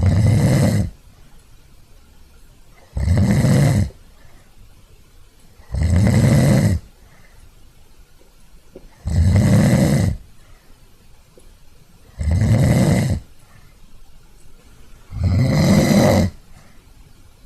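Snoring: six snores in a steady rhythm, each about a second long and coming roughly every three seconds, with quiet between them.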